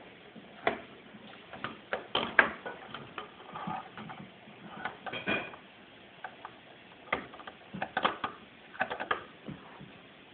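Tech Deck fingerboard clacking on a tabletop: irregular sharp clicks and taps, some in quick clusters, as the board's tail and wheels strike the surface during attempted flip tricks.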